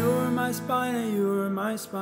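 Acoustic guitar strummed, a full strum at the start and another near the end, under a man's voice singing held, gliding notes.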